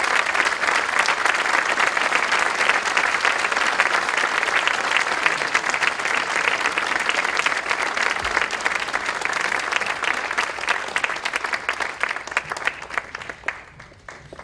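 Large audience applauding, dense steady clapping that thins out and dies away near the end.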